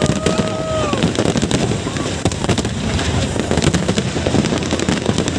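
Fireworks bursting overhead: rapid bangs and crackling over a continuous low rumble, with crowd voices. A long held high tone sounds in the first second.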